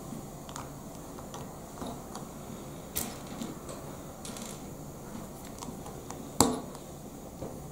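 Lego plastic pieces clicking as they are handled and pressed together, with a sharper click about three seconds in and the loudest snap a little after six seconds.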